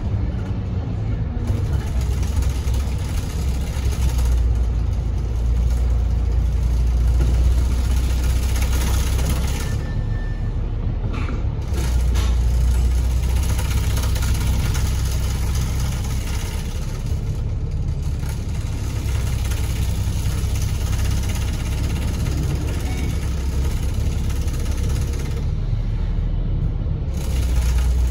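Interior of an Alexander Dennis Enviro500 double-decker bus on the move: a steady low rumble of diesel engine and road noise that swells and eases as the bus accelerates and slows.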